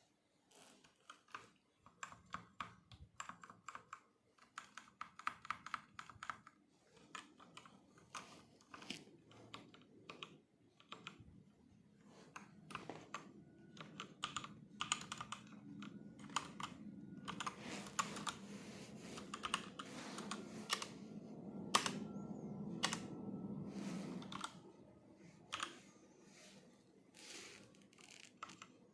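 Typing on a Cosmic Byte mechanical keyboard: irregular clicking keystrokes, in runs of quick presses broken by short pauses, over a low background hum through the middle stretch.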